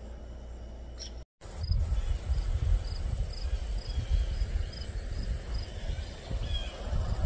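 Wind buffeting the microphone in uneven gusts of low rumble, after the sound cuts out briefly about a second in. Behind it, an insect such as a cricket chirps at a steady pulse of about two short high chirps a second.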